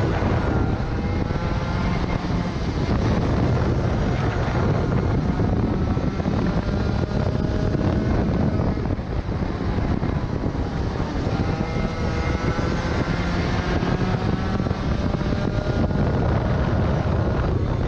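Racing kart engine running hard on the throttle, its pitch climbing in several long pulls and dropping back a few times in between as the kart slows for corners and accelerates out. Heavy wind rush on the microphone runs underneath.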